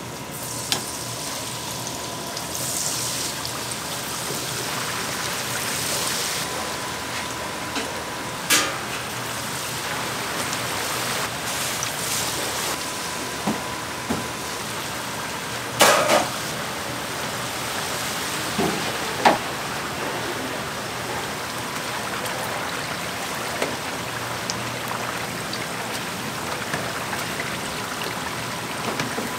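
Battered stuffed peppers deep-frying in hot oil: a steady sizzle, broken by a few sharp knocks, the loudest about halfway through.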